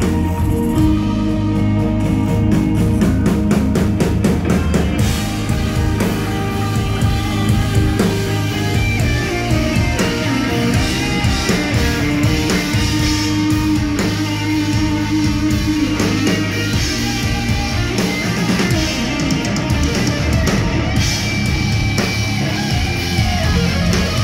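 Instrumental progressive rock played live by a full band: electric guitars over bass and drums, played continuously and loudly.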